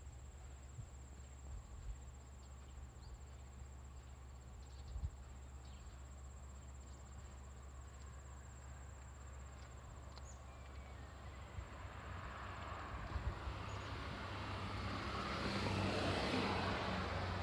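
A diesel railcar approaching, its running noise building over the last several seconds and loudest near the end. A steady high insect trill carries on throughout.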